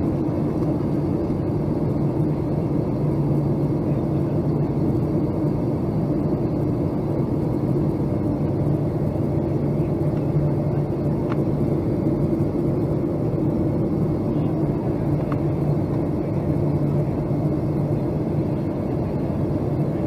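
Steady cabin drone inside a Boeing 757-200 on descent, the jet engines and rushing air blending into a constant low hum. Two faint ticks are heard, about eleven and fifteen seconds in.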